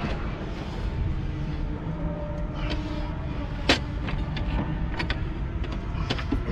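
A few sharp metallic knocks and clicks of hand tools on a race car's front wheel hub and suspension, the loudest about three and a half seconds in, over a steady low rumble.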